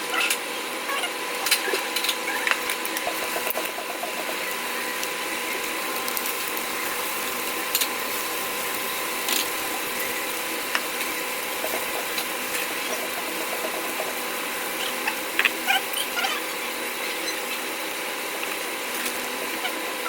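Close-up eating sounds: a person chewing grilled meat, with scattered short clicks over a steady hiss and faint hum.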